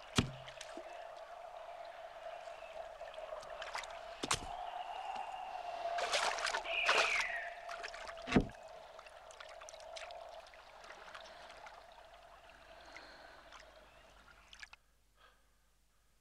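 Water splashing and lapping as a flat-bottomed wooden boat is pushed along with poles, with three sharp knocks about four seconds apart and a steady faint hum underneath. It all stops shortly before the end.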